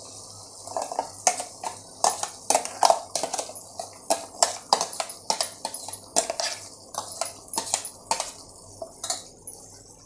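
A spoon scraping and knocking repeatedly against the rim of a glass bowl as thick tomato-onion paste is scraped into a pan, with a steady sizzle of chicken frying in oil underneath. The clinks come irregularly and stop shortly before the end.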